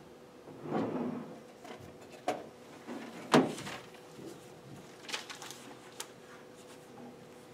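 Papers, a notepad and folders being handled and set down on a wooden conference table: rustling, a few sharp clicks and one louder knock about three seconds in. A faint steady hum runs underneath.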